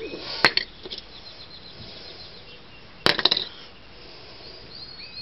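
Sharp metallic clinks of small steel brake parts being handled: a single clink about half a second in, then a quick rattle of several about three seconds in. Birds chirp faintly in the background.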